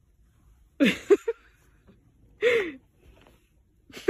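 A person's voice: two short breathy cries falling in pitch, about a second and a half apart, the first followed by a quick clipped sound.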